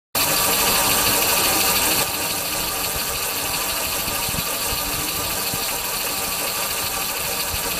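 Open-frame test vehicle running and driving off, a steady engine-like noise with heavy hiss. It cuts in suddenly and drops a little in level about two seconds in.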